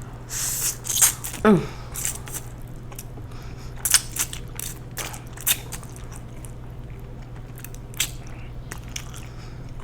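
A person chewing and biting food close to the microphone, with wet clicks and smacks throughout. About a second and a half in there is a short falling vocal sound.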